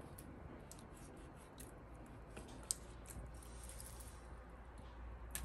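Faint sounds of a kitchen knife slicing raw chicken breast on a plastic cutting board: small scattered clicks of the blade and one sharper tap about halfway through.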